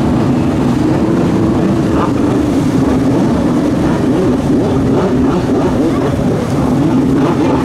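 Several two-stroke stand-up jet skis running hard on the water, their engine note rising and falling as the riders carve and spin.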